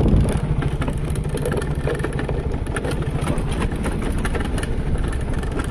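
Yamaha Mio automatic scooter's single-cylinder four-stroke engine running steadily while the scooter is ridden, dropping a little in level just after the start.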